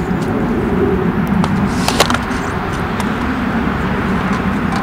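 Metal tongs handling a crushed aluminium beer can of charring cloth as it is lifted off a burning wood stove: a few light clicks and one sharp knock about two seconds in, over a steady low rumble.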